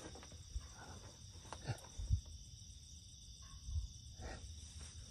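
Steady high chirring of night insects, with a few soft low bumps and rustles from handling close by, the loudest about two seconds in.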